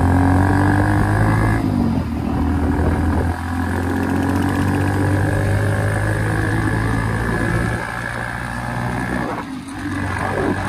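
Modified Hero Splendor motorcycle's single-cylinder four-stroke engine running loud through an aftermarket RX silencer while riding. It holds a steady low note that drops briefly near the end.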